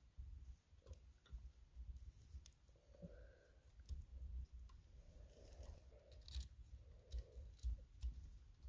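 Faint handling noises: scattered light clicks and rustles over a low rumble.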